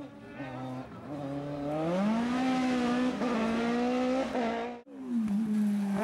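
Race car engine accelerating hard: its pitch climbs steeply about two seconds in and holds at high revs with small dips. The sound breaks off abruptly near the end and another race engine comes in at high revs.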